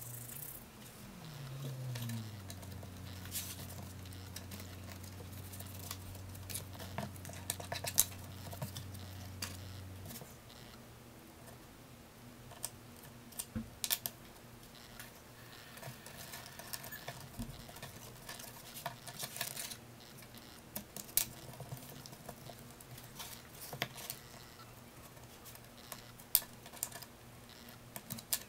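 Hands handling a hand-bound notebook on a wooden workbench: scattered light taps, clicks and paper rustles as the pages and cover are pressed and worked. A low hum drops in pitch about a second in, holds steady, and stops about ten seconds in.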